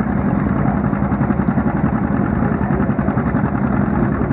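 Old two-cylinder John Deere tractor engines running hard as they pull a weight sled, with a steady, fast exhaust beat.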